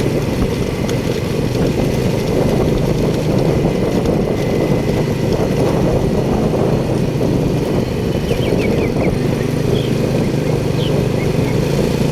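A motor runs steadily with a low, even rumble. A few faint, short, high chirps come through it about eight seconds in and again near the end.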